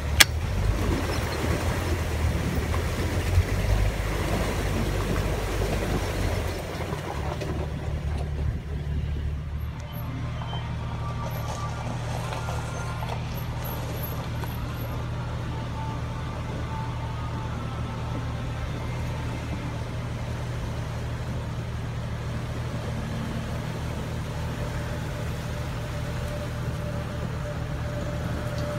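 Jeep engine running with rough cabin and trail noise while driving, for about the first ten seconds. It then gives way to a steadier, quieter engine hum as a Jeep Wrangler creeps slowly through a shallow creek crossing.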